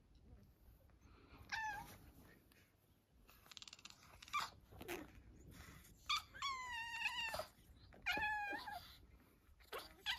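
A lilac point Siamese kitten gives three high meows while a tabby kitten pins it in a play-fight. The first meow is short and falling, the second about six seconds in is long and wavering, and a third follows just after. Soft scuffling of paws on fabric runs between the calls.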